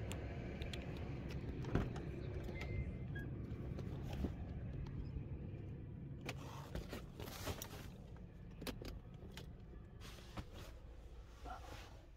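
Keys jangling and clicking as a Honda Element is unlocked and opened, then knocks, clatter and rustling as a backpack and gear go into the car. A steady low rumble lies under the first half and fades about halfway through.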